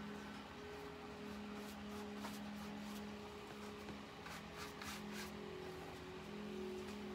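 Soft background music with long held notes. Over it, a few short scratchy strokes of a wide paintbrush scrubbing acrylic paint on canvas, clustered a little past the middle.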